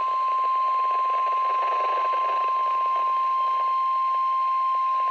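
NOAA Weather Radio's 1050 Hz warning alarm tone, one steady unbroken tone over radio hiss. It is the alert sent ahead of a tornado warning broadcast.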